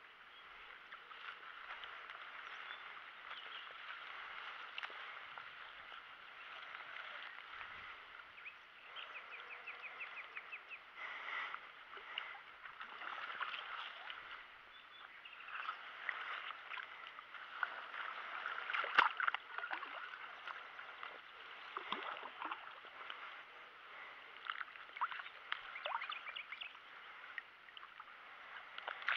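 Water splashing and swirling as a hooked carp thrashes at the surface close to the bank, with irregular small splashes and one sharp, louder splash about 19 seconds in.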